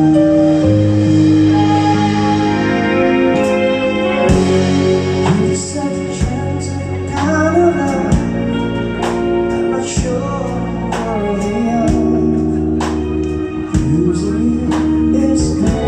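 Live band playing: sustained keyboard chords over a bass line, with a steady drum beat coming in about four seconds in and a singer's voice over the top.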